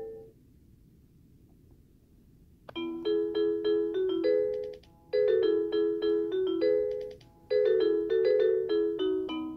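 A baby nightlight toy playing a tinkling electronic lullaby melody of short chime-like notes. A note dies away at the start, there are a couple of seconds of faint hiss, and the tune begins about three seconds in, phrase by phrase with short pauses between.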